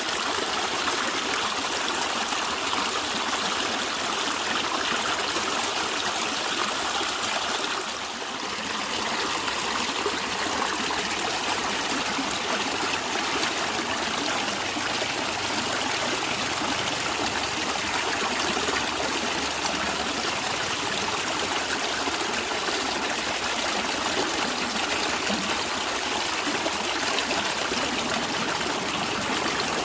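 A natural stream flowing, with steady gurgling and trickling water. It dips briefly about eight seconds in.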